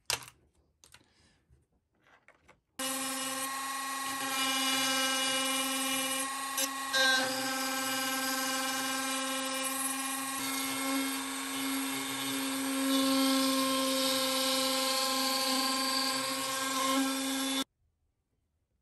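Handheld rotary tool running at a steady high speed, its small bit enlarging a hole in a hedge cutter's plastic housing. It starts suddenly about three seconds in, after a few light handling clicks, and cuts off suddenly near the end.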